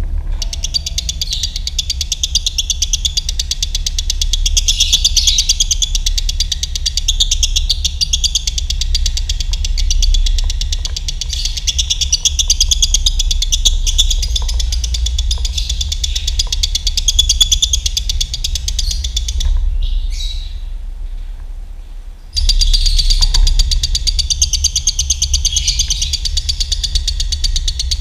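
Lovebird singing a long, rapid, continuous chattering trill of the 'dobelan' kind used as training song, fading and breaking off briefly about twenty seconds in before starting again abruptly. A steady low hum runs underneath.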